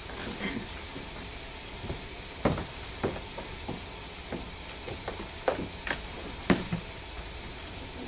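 Footsteps and scattered dull knocks over a steady hiss, the loudest knocks about two and a half and six and a half seconds in.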